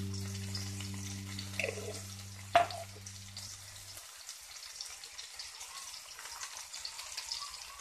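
Whole fish with chopped tomatoes and onions cooking in a stainless steel pan, a faint steady sizzle with small crackles, and a single sharp click about two and a half seconds in. Background music fades out in the first half.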